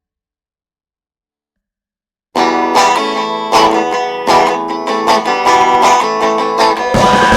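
Dead silence for about two seconds, then a guitar comes in suddenly, playing quick picked notes. Near the end, drums and bass join in under it.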